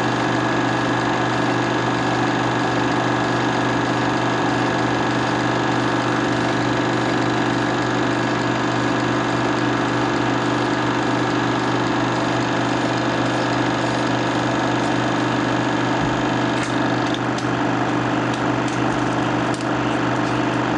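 Loud, steady mechanical buzz and hum of 16mm film being run for playback, with a few faint clicks near the end.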